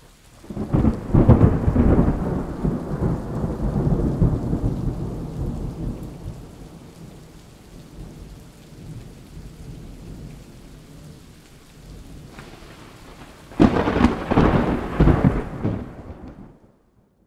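Thunderstorm: a loud rolling thunderclap about a second in that fades over several seconds, steady rain in between, and a second sharp thunderclap near the end that rumbles away.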